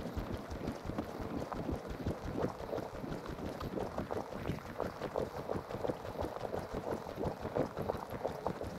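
Footsteps crunching on a thin layer of snow on a path, with wind rumbling on the microphone.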